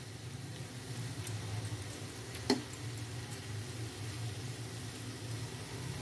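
Banana fritters deep-frying in hot oil: a steady sizzle with small crackles, and one sharp tap about halfway through as the spatula knocks the pan.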